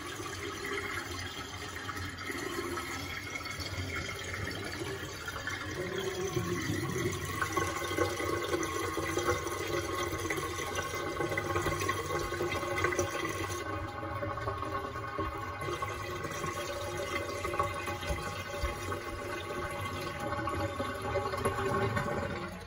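Water swirling and gurgling down the drains of a stainless-steel double kitchen sink as it empties in whirlpools, a continuous gurgle with steady hollow tones in it. Near the end the last water sucks down the plughole and the sound drops away.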